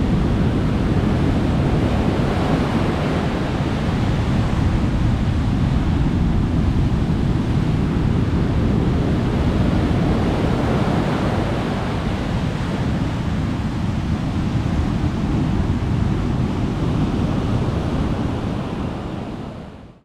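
Sea waves washing onto the shore in a steady, swelling rush, with wind on the microphone adding a low rumble; the sound fades out at the very end.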